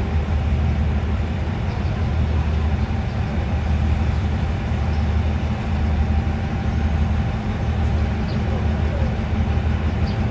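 Hitachi diesel-electric locomotive 4509 running with a steady low engine drone as it starts a local passenger train moving slowly out of the station.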